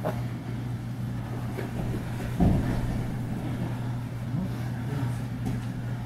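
Grappling in gis on a mat: cloth rustling and scuffing, with a heavy thump of a body on the mat about two and a half seconds in, over a steady low electric hum.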